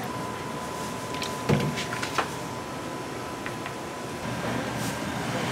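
Steady mechanical hum with a faint, steady high tone, broken by a few light knocks and clicks from work in a food-stall kitchen.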